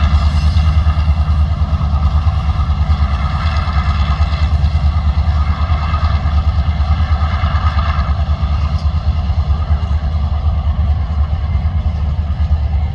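Three diesel-electric freight locomotives working hard up a grade: a loud, steady, low engine rumble with a constant throb, with container wagons rolling behind.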